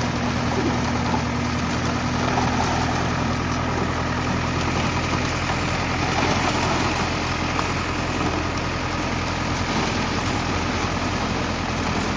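Diesel engine of a Schwing Stetter SLM 600 self-loading concrete mixer running steadily at idle, a constant low hum. A higher tone fades out about halfway through.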